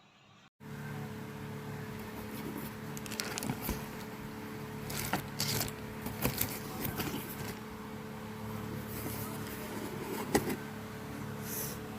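Foldable mini stainless-steel electric travel kettle heating water: a steady hum and hiss with irregular crackles and ticks, starting abruptly about half a second in.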